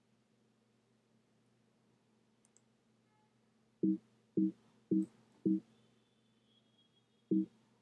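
Short low electronic alert beeps from a computer: four about half a second apart, then one more about two seconds later. Each is a brief steady two-tone beep.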